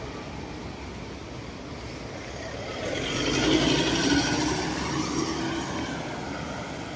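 Road traffic: a vehicle passes close by, its engine and tyre noise swelling about three seconds in and then fading.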